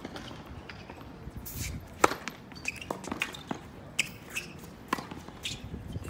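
Tennis balls struck by rackets and bouncing on a hard court during a doubles rally: a run of sharp knocks, the loudest about two seconds in, with shuffling footsteps on the court.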